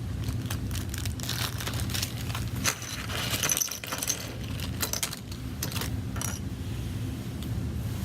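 Plastic opening picks and prying tools clicking and scraping against the iPad Air's glass and frame: a scatter of short sharp clicks through the middle, over a steady low hum.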